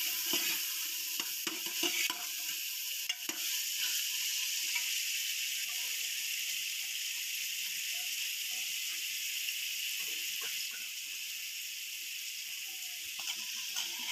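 Potato pieces frying in hot oil in an aluminium pressure cooker, sizzling steadily, with a few clicks and scrapes as a ladle stirs them.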